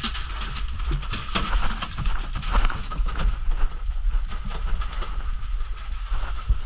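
Small fishing boat's engine running with a steady low rumble, with irregular knocks of water and handling against the hull.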